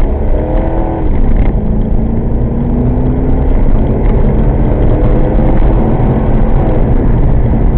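1998 Chevrolet Corvette C5's 5.7-litre LS1 V8 accelerating hard. The engine note climbs, drops at a gear change about a second in, then rises steadily again through the next gear over a constant low rumble.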